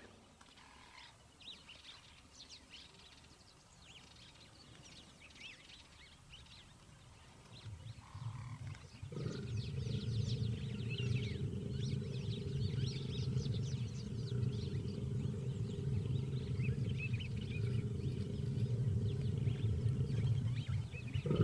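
Faint small-bird chirps, then about nine seconds in a male lion mating with a lioness starts a loud, low, continuous growl.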